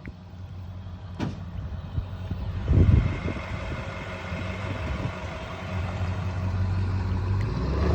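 Vehicle engine running with a low, steady hum that grows louder as it pulls forward, with two short knocks, one about a second in and one near three seconds in.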